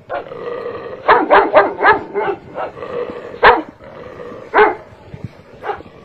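Saint Bernard dogs barking: a quick run of barks about a second in, then single louder barks spaced about a second apart.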